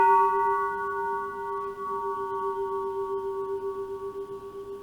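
Japanese Buddhist temple bell ringing on after being struck: a strong hum that holds with a slow wavering pulse, while several higher overtones die away over a few seconds.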